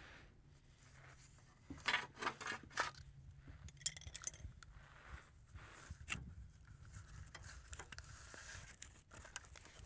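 Light clicks, taps and scrapes of hands and a small tool working under a car, with a quick run of sharp clicks about two seconds in and single clicks near four and six seconds.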